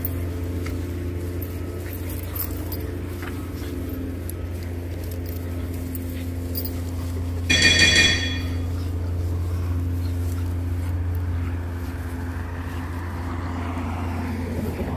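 Two pugs playfighting, with dog grunts and growls over a steady low hum. A short, bright chime sounds about eight seconds in.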